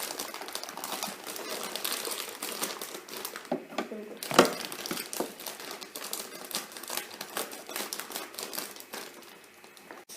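Plastic food packaging crinkling and crackling as it is handled and pulled open, with one sharp knock about four and a half seconds in; the crackling dies away near the end.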